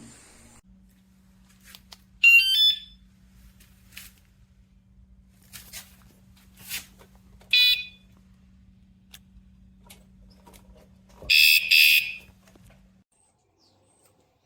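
Fosmon bike alarm giving short electronic chirps: a brief warbling chirp about two seconds in, a short beep near eight seconds, and a louder double beep about eleven seconds in, with scattered light clicks between them.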